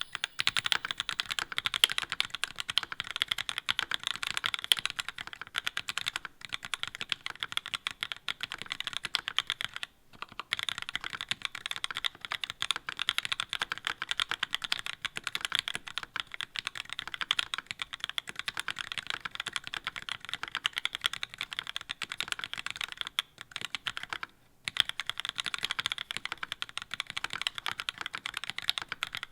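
Steady fast typing on a mechanical keyboard fitted with GMK doubleshot ABS keycaps in Cherry profile: a dense stream of key clicks and clacks, broken by a few brief pauses.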